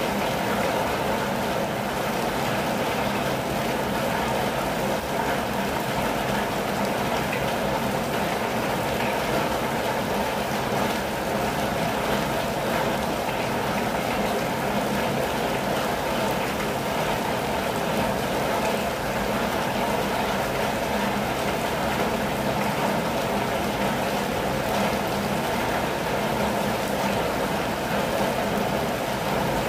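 Steady rain falling on a campervan, a constant even patter with no single sounds standing out.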